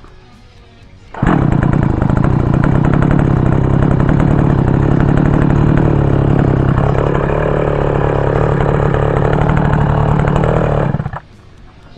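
Small two-stroke chainsaw engine running at a steady speed for about ten seconds, loud, cutting in suddenly and cutting off abruptly.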